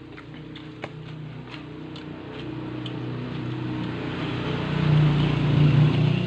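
A motor vehicle's engine running and growing steadily louder as it approaches, loudest about five seconds in.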